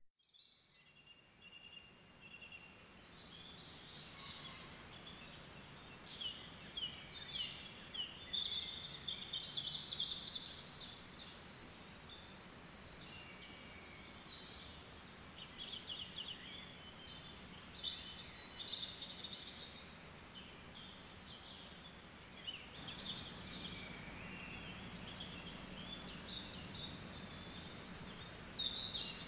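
Woodland birdsong: small birds singing and chirping in short, varied phrases over a faint steady hiss, growing louder near the end.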